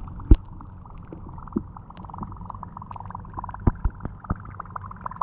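Water lapping against a small boat on the river, heard muffled: a steady wash with rapid light ticks, and a few dull knocks, one just after the start and three close together in the second half.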